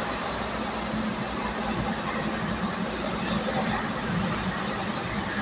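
Steady running noise of a vehicle cruising on an expressway, heard from inside the cab: an even rush of tyre and wind noise over a constant low engine hum.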